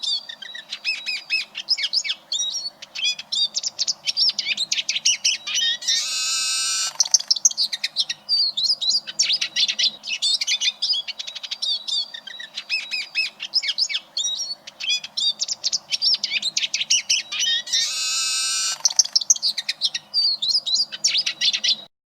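Eurasian siskin singing: a fast, continuous twittering song with a long, buzzy, wheezing note twice, about six seconds in and again near the end. The song cuts off abruptly just before the end.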